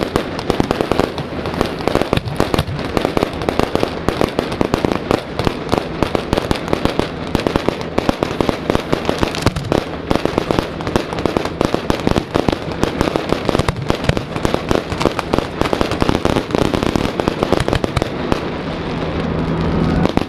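Fireworks display going off close by in a rapid, unbroken barrage of booms and crackling bursts.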